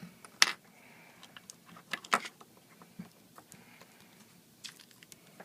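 Scattered sharp clicks and light taps of small hand tools and parts being handled on an opened iPad, the loudest click a little under half a second in and a pair about two seconds in.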